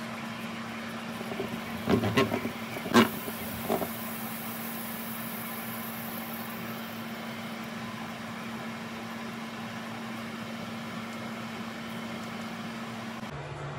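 A few clatters of cookware on a grill pan on an electric stovetop, the loudest about three seconds in. They are followed by a high hiss that fades over a few seconds. A steady low hum runs underneath.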